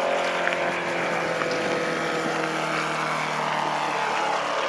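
Radio-controlled model airplane engine running at speed as the plane flies low past and climbs away, its note falling in pitch as it passes, with a higher tone rising near the end.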